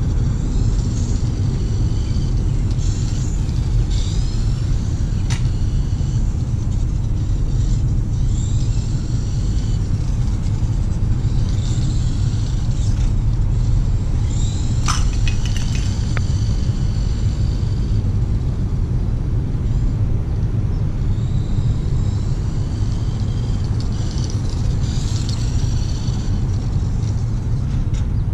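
The high whine of the Tamiya Dual Rider RC trike's small electric motor, rising and falling in pitch again and again as the trike speeds up and slows, over a steady low rumble. Two sharp clicks stand out, a few seconds in and again about halfway through.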